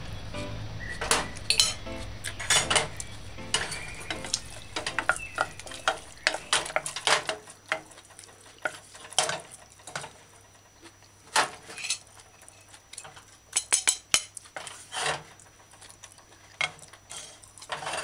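A metal fork clinking and scraping on a ceramic plate, and a wooden spoon stirring and knocking against a stainless steel pot of stir-fried vegetables. The sharp clinks come irregularly, busiest in the first seven seconds and sparser after.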